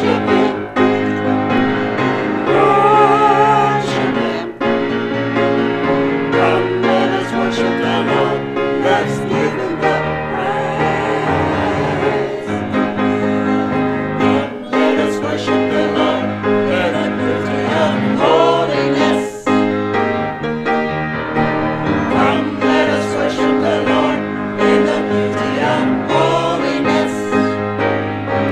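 A church praise team of several voices singing a slow worship song together, accompanied by a grand piano.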